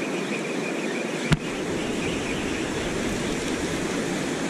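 Ocean surf washing steadily on a beach, with one sharp click about a second in.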